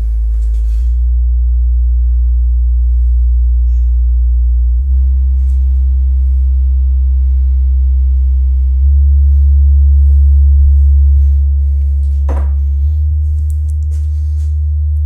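REL T9x subwoofer playing a stepped low-frequency test-tone sweep: loud, steady bass tones that jump to a new pitch about every four seconds and cut off abruptly near the end.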